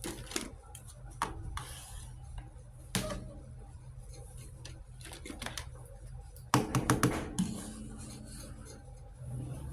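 Small plastic toy kitchen pieces being handled: scattered light clicks and taps as parts are picked up and set down, with a quick run of sharper clacks about two-thirds of the way in. A steady low hum runs underneath.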